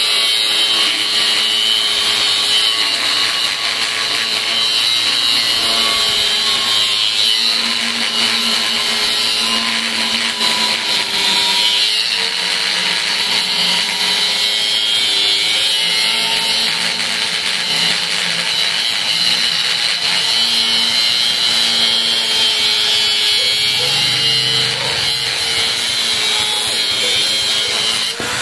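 Angle grinder cutting through the steel shell of an inverter air-conditioner compressor: a steady, loud grinding with the motor's whine dipping and recovering as the disc bites.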